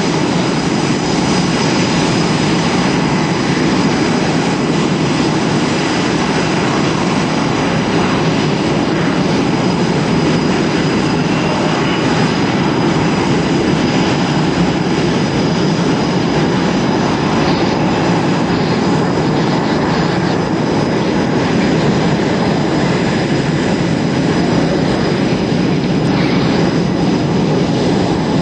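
Twin Pratt & Whitney F119 turbofans of an F-22 Raptor on landing approach and rollout: a loud, steady rush of jet noise with a thin high whine over it.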